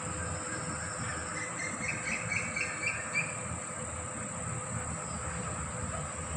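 Steady high-pitched insect drone, with a bird calling a quick run of about six short notes about two seconds in, over a low rumble.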